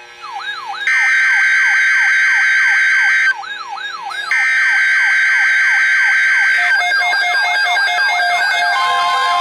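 Emergency Alert System SAME header data bursts: two harsh buzzing screeches, each a little over two seconds long with about a second between them, over a fast repeating wailing siren sweep. Near the end the steady single-pitch NOAA Weather Radio warning tone begins.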